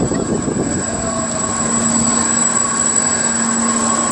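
Fairground ride with a rotating, tilting disc of seats, its machinery running: a steady mechanical hum, with a low drone that comes in about a second in and holds.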